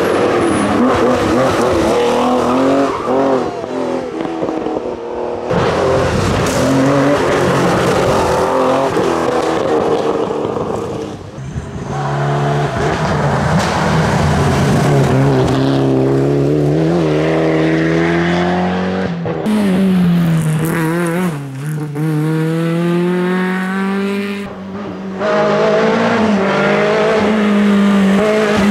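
Historic rally cars driven at full throttle, one after another. The engines climb in pitch and drop back through gear changes, with some tyre squeal, and the sound cuts abruptly from one car to the next several times.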